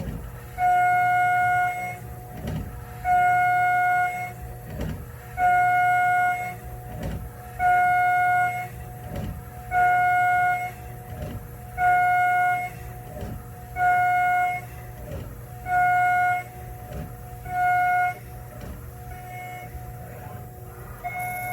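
CNC spindle at 20,000 rpm driving an 8 mm two-flute carbide endmill through 5083 aluminium. Nine cutting passes of about a second each come roughly every two seconds, each a steady high whine at the flutes' tooth-passing pitch. Between passes the spindle runs quieter over a low hum.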